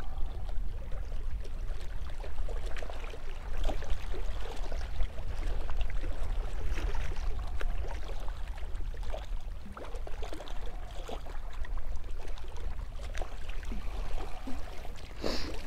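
Wind rumbling steadily on the microphone, with choppy lake water lapping and splashing against shoreline rocks.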